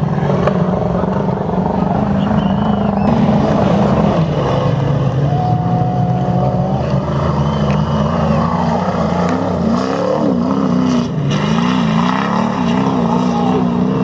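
Race truck's engine running hard under load, its pitch swinging quickly up and down in the second half as the revs rise and fall.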